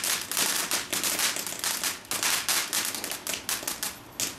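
Ground fountain firework spraying sparks with a dense, rapid crackle of small pops over a hiss, thinning a little near the end.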